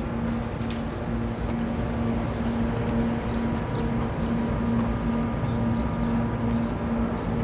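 A steady low hum, like a running motor, with faint short high chirps scattered over it.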